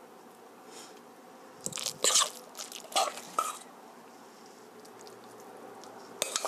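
Thick, wet zucchini and ground-meat batter handled by hand and dropped into an oiled frying pan: a few short crackling, squelching bursts about two and three seconds in and again near the end.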